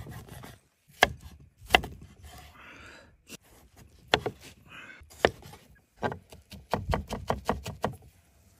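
Large kitchen knife chopping vegetables on a wooden cutting board: a few separate chops through green pepper and tomato, then a quick run of rapid chops near the end as fresh coriander is minced.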